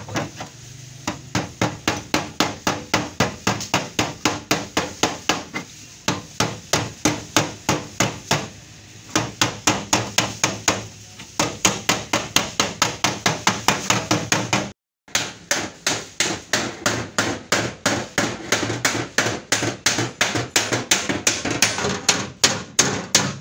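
Hand hammer beating the rusted steel sill of a 1988 Toyota Corolla: quick, light strikes at about four to five a second, in runs with short pauses between them.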